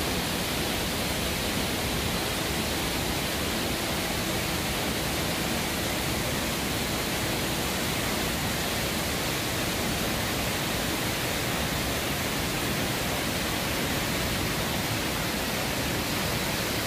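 Johnston Canyon's Lower Falls, a waterfall heard up close: a steady rush of falling water plunging into its pool, even and unbroken throughout.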